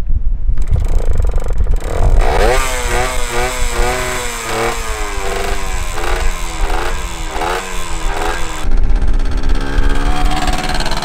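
Yamaha 100 two-stroke dirt bike engine running, revved up and down over and over, then settling to a steadier note near the end.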